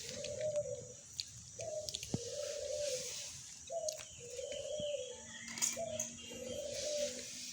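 A dove cooing: a short note followed by a longer, held note, repeated about every two seconds. Faint chirps and clicks sound over it.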